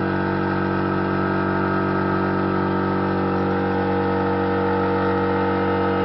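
Ferguson TE20 tractor's four-cylinder engine idling steadily with its rocker cover off, the tappets freshly adjusted.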